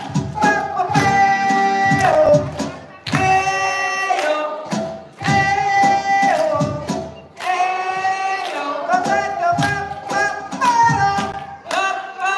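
A song playing: a singing voice in phrases of long held notes over a drum beat and instruments.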